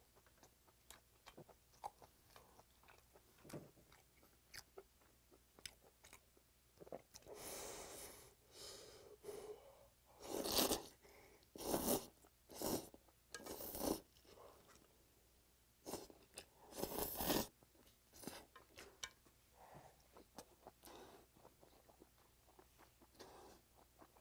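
A person chewing and slurping glass noodles and braised pork, close to the microphone, with quiet wet chewing throughout and a run of loud slurps from about halfway through.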